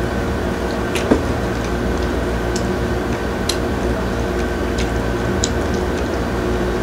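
A steady low electrical hum with scattered small clicks and smacks of a man chewing fresh shrimp, and one sharper tap about a second in.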